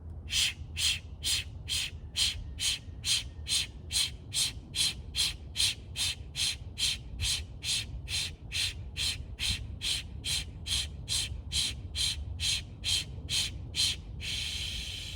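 Kapalabhati (breath of fire) breathing: a rapid, even series of sharp, forceful exhalations, a little over two a second, about thirty in all. Near the end the pumping stops and gives way to one longer breath.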